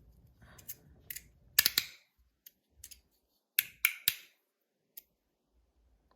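Sharp metallic clicks and clacks from a Rapt fidget slider being handled and slid: a scattered series, loudest in a cluster about one and a half seconds in and another near four seconds in.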